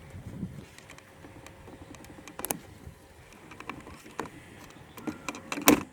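Plastic clicks and knocks from a plastic trim tool prying at a car door's window switch panel, scattered sharp clicks with a cluster near the end, the loudest just before it stops.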